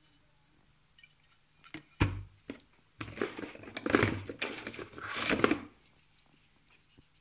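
Unpacking handling sounds: a sharp knock about two seconds in, then a few seconds of clattering and rustling as the angle grinder, its parts and packaging are handled and set down.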